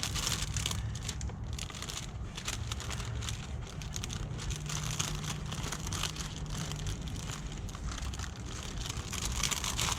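Plastic window tint film crinkling and crackling in irregular bursts as it is handled and worked into place against the door glass.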